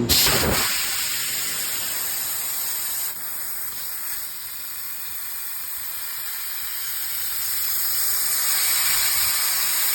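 2000-watt fiber laser cutting quarter-inch aluminum plate: the steady hiss of assist gas jetting through the cutting head's nozzle. A louder burst opens it in the first half second, and the hiss grows a little louder toward the end.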